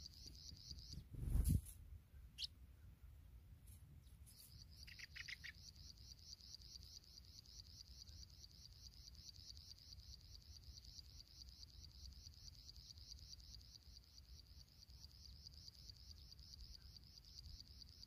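A cricket's faint, high, fast-pulsing trill that drops out briefly after the first second, then runs on steadily. About a second and a half in there is a loud low thump, and around five seconds in a short run of soft chirps.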